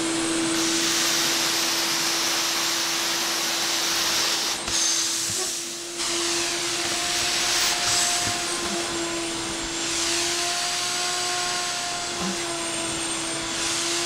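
Ridgid 12-gallon NXT wet/dry shop vac running steadily, a motor whine under a rush of air as its floor nozzle sucks spilled water off tile and wet carpet. The rush dips briefly about five seconds in.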